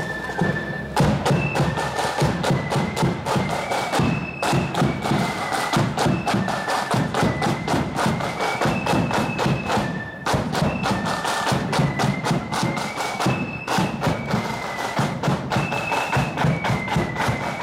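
Marching flute band playing a march: a high flute melody over a steady rattle of snare drums and the beat of a bass drum, the drums breaking off for a moment three times.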